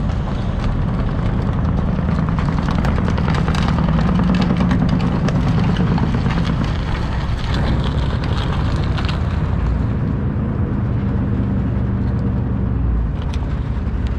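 Ford 460 big-block V8 of a 1995 F350 pickup running steadily, with a low engine note that rises and gets a little louder a few seconds in, then settles.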